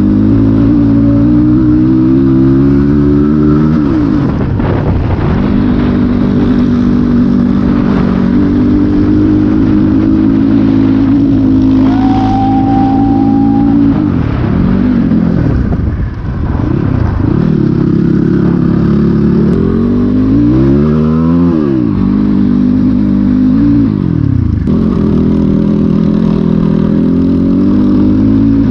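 Dirt bike engine running and revving, its pitch holding steady, then dropping and climbing again several times as the throttle is closed and reopened.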